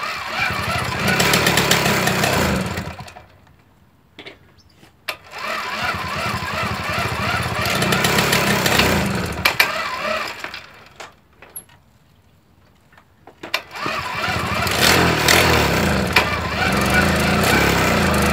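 Jawa Babetta moped's small two-stroke engine being pedal-started from cold. It catches and runs for about three seconds, dies, and catches again about five seconds in. It dies again near ten seconds and starts once more about thirteen seconds in. The owner says the clutch slips a little.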